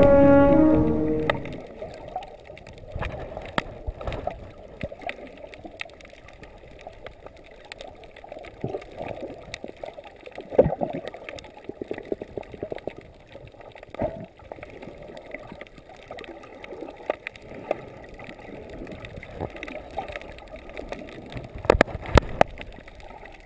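Underwater sound picked up by a submerged camera: a low, muffled water noise with scattered clicks and crackles, and a few sharp knocks near the end. Music fades out in the first second or so.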